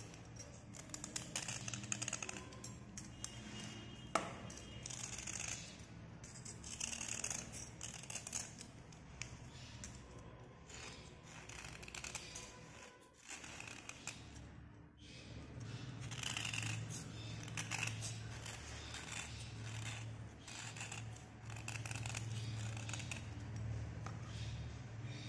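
Utility knife blade scraping the outer crust off a slate pencil: rapid, irregular runs of short gritty scraping strokes, with a brief pause about halfway through.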